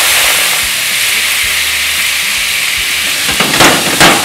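White wine sizzling in the hot frying pan as it deglazes it, a steady hiss that eases off a little. A bit over three seconds in, a utensil starts scraping and stirring the pan in quick strokes, about three a second, working the browned bits loose.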